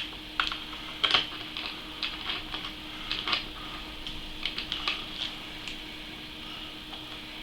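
Light, irregular clicks and taps of small metal mounting screws and hardware being handled and finger-tightened on a water block's back plate mount on a motherboard, dying away about five seconds in, over a faint steady hum.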